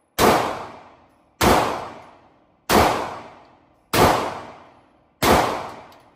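Five gunshots fired at a slow, even pace, about one every second and a quarter. Each is a sharp crack with an echoing tail that dies away before the next.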